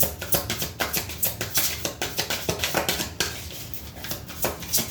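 Tarot deck being shuffled by hand: a rapid, uneven run of soft card clicks and slaps.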